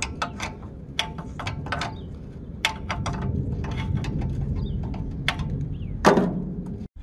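Ratchet spanner clicking in short runs, about five clicks a second, as a bolt holding a petrol generator's engine mounting is loosened, with a louder clunk near the end.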